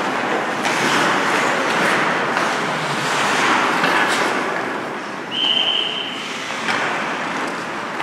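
Ice skates scraping and carving on the ice of an indoor rink, with several sharp clacks of sticks and puck. A little past halfway a whistle sounds one steady high note for about a second.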